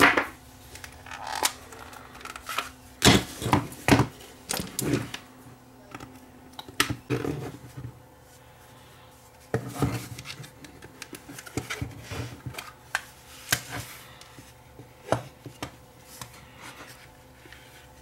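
Irregular clicks, taps and knocks of a Fluke 12 multimeter's plastic case being handled and opened up, loudest about three to four seconds in, then scattered lighter clicks.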